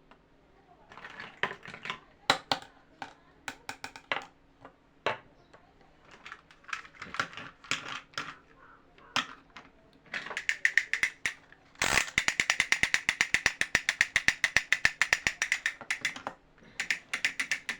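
Scattered sharp clicks and taps, then from about ten seconds in a fast, even run of ratchet-like clicking, about ten clicks a second, which stops near sixteen seconds and starts again briefly near the end.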